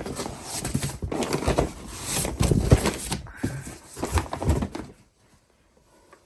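Handling noise of firework packages being moved about: dense, irregular rustling, knocking and clattering that stops about five seconds in.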